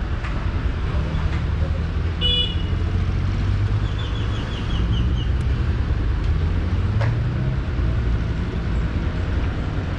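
Street traffic: vehicle engines running and passing with a steady low rumble, a short horn toot about two seconds in, and a quick run of high chirps a couple of seconds later.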